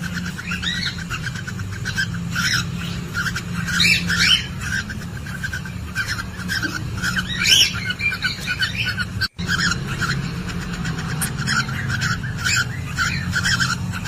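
Cockatiels chirping continuously in quick, repeated short notes, with a few louder rising calls, over a steady low hum. The sound drops out for an instant about nine seconds in.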